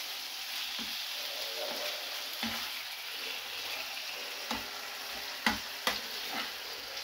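Diced raw chicken sizzling in a hot frying pan while a wooden spatula stirs it, with a few knocks of the spatula against the pan. The loudest knock comes about five and a half seconds in.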